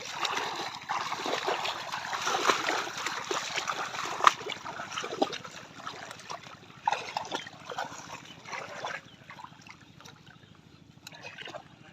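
River water splashing and sloshing hard and unevenly, loudest over the first few seconds, then coming in a few separate bursts before dying down to light splashes near the end.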